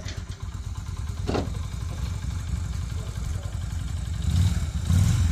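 Cruiser motorcycle engine idling with a steady low throb, then revved up and getting louder near the end.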